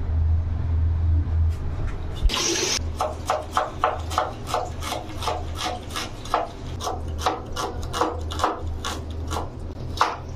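Kitchen knife chopping a red onion on a wooden chopping board, in even strokes about three to four a second that start about three seconds in, over a low steady hum.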